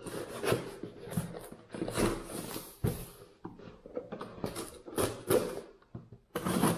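Cardboard shipping box being opened by hand: an irregular run of rustling, scraping and sharp knocks of cardboard and packing material.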